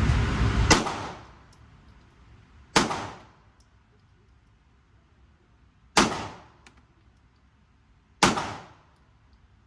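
Four single pistol shots from a SIG handgun, fired slowly one at a time, each with a short fading echo. A loud steady hiss stops abruptly at the first shot.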